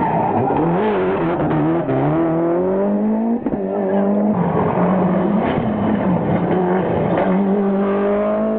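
Toyota Celica GT-Four ST185 rally car's turbocharged 2.0-litre four-cylinder engine revving hard at racing speed. The engine note drops at the start as it slows for a bend, then climbs again and again as it accelerates away.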